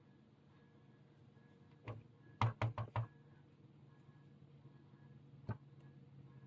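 A few short knocks on a hard surface: one, then a quick run of four about two and a half seconds in, and a last one near the end. These are objects being handled and set down on a craft desk.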